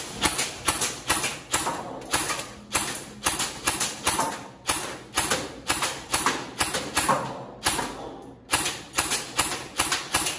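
Specna Arms EDGE airsoft electric rifle (M4 AEG) firing single shots in quick succession, about three a second. Each shot is a sharp snap of the gearbox cycling, and there is a short pause about eight seconds in.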